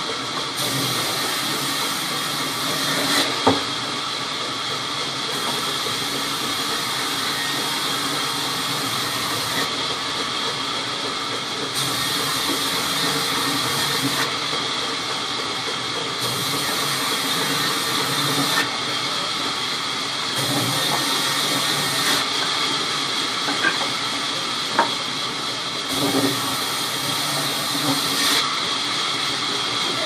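Sawmill vertical band saw running steadily, a continuous whirring hiss as it saws a rain tree log into planks. A few sharp knocks come from the sawn boards being handled.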